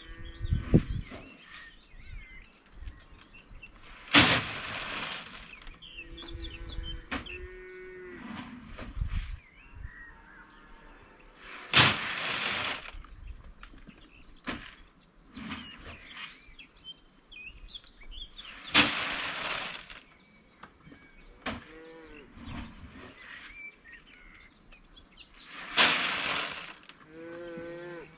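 Dairy cattle mooing and bawling, several short calls. Four loud hissing rushes of noise, each about a second long and about seven seconds apart, stand out above them.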